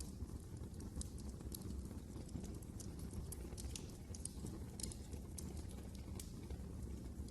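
Wood fire crackling in a fireplace: irregular sharp snaps and pops over a low, steady rumble of the flames.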